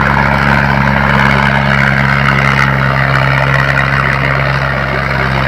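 Fiat 480 tractor's three-cylinder diesel engine running loud and steady under heavy load, its exhaust smoking black.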